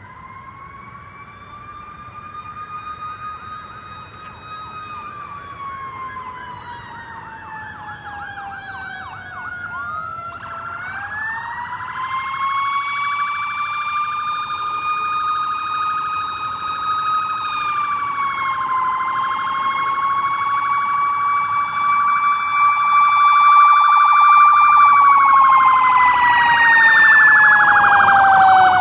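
Fire engine's siren wailing in slow rising and falling sweeps, with a quicker warble briefly about ten seconds in. It grows steadily louder as the truck approaches, and its pitch falls near the end as it passes.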